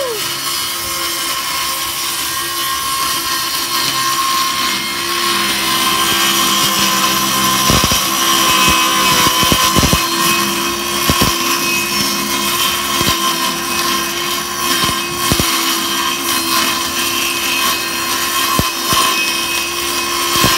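DeWalt DCS393 20V cordless circular saw cutting through a plywood sheet: a steady motor whine over a hissing cut, with scattered knocks.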